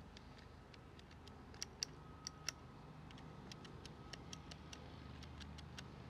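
Faint, irregular plastic clicks of a 2001 Nissan Pathfinder power window master switch's rocker buttons being pressed and released, a few a second, a little louder for a moment about two seconds in. The switch has just been cleaned with contact cleaner and put back in its housing, and its buttons are being run to check they work the actuators inside.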